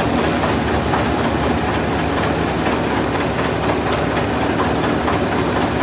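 Tractor-driven threshing machine running steadily as sheaves of wheat are fed into it by hand. A constant engine drone mixes with the thresher's noise.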